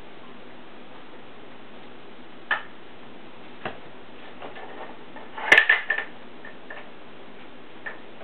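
Scattered clicks and taps of puppies' claws and paws on a tile floor as two puppies tussle over a plush toy. The loudest is a quick cluster of clicks with a short high note about five and a half seconds in.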